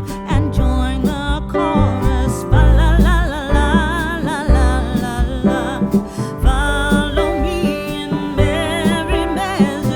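Background music: a song with a singing voice, its held notes wavering in vibrato, over instruments with a strong bass.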